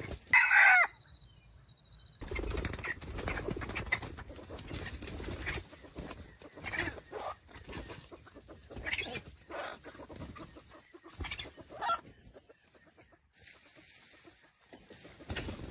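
Wild junglefowl rooster: one loud, short call falling in pitch about half a second in, cut off abruptly, then a few quieter short clucking calls.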